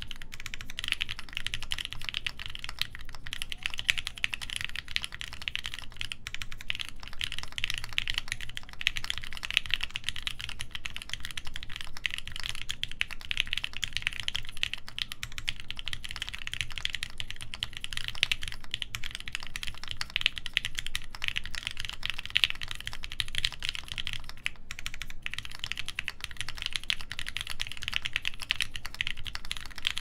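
Continuous fast typing on a Jacky Bear 65 mechanical keyboard fitted with Krytox 205g0-lubed Alpaca linear switches, a full polycarbonate plate and CRP R4 keycaps. It makes a dense, steady stream of key clacks.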